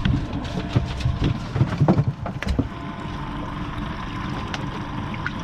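Twin outboard motors running at low speed on a boat, a steady hum under water and wind noise. A run of knocks and thumps in the first few seconds.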